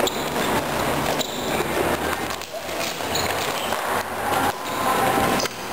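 Floor hockey play: repeated sharp clacks of plastic sticks and ball hitting each other and the floor, with running footsteps and occasional shouts from the players.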